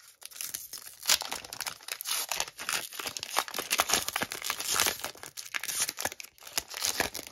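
The shiny wrapper of a hockey trading card pack being torn open and crinkled by hand: a dense, continuous crackling rustle with many small sharp crackles.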